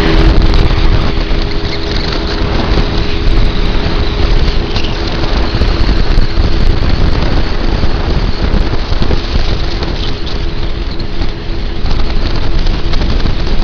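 Jet ski engine running flat out at speed, holding a steady pitch after revving up, under heavy wind noise on the microphone.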